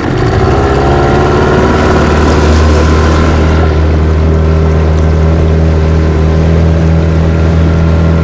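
Tohatsu 18 hp two-stroke outboard motor opened up from idle as the boat gets under way: it gets suddenly louder, its pitch climbs over the first few seconds, and then it runs steadily.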